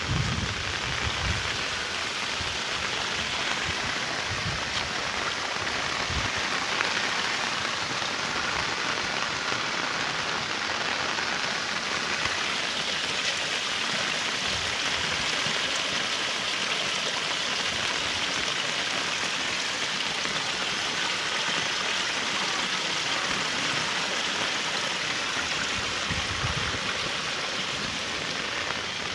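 Steady rain falling on wet ground, a continuous even hiss, with a few soft low thumps here and there.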